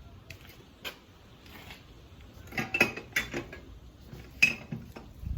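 Small hard objects clinking and knocking together as they are picked up and rummaged through, with a few sharp clinks that ring briefly, loudest about three seconds in and again near four and a half seconds.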